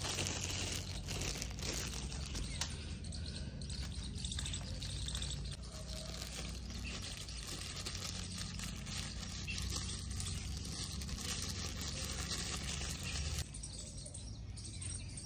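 Birds chirping in the background over a steady low rumble that drops away near the end.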